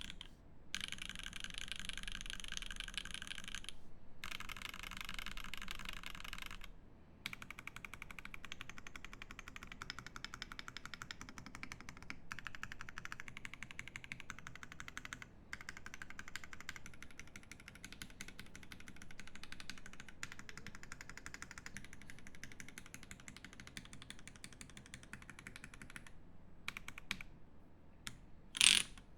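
IRON165 mechanical keyboard with lubed Banana Split linear switches, a copper plate and GMK keycaps, typed on in fast continuous runs broken by brief pauses. Near the end the typing thins to a few single keystrokes, followed by one much louder sharp clack.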